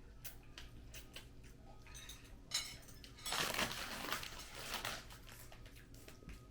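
Utensils clicking against a bowl in a few sharp taps, with a louder, rough stretch of eating noise from the noodles about three seconds in that lasts about a second and a half.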